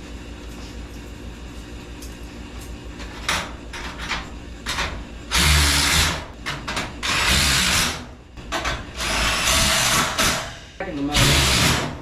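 Power drill driving screws into garage door parts, running in short bursts about a second long, four times in the second half, after a few lighter clicks.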